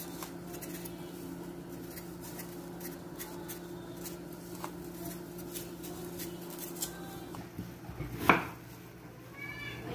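Kitchen knife working raw potatoes over a wooden cutting board: faint scraping and small clicks as they are peeled, then one sharp chop through a potato onto the board about eight seconds in. A steady low hum runs underneath.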